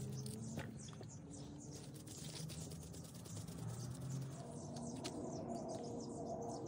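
Faint patter and light ticks of an ancho chili dry rub being sprinkled onto a raw tri-tip roast and worked in by hand. Faint bird chirps come and go.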